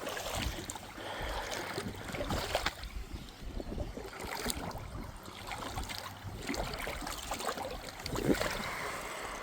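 Shallow creek water running, with scattered small splashes and knocks and a louder thump about eight seconds in.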